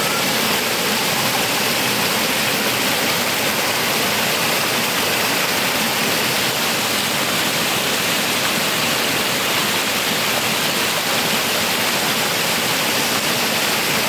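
Mountain stream water rushing and splashing over boulders in a small cascade, heard from close up as a steady, even rush.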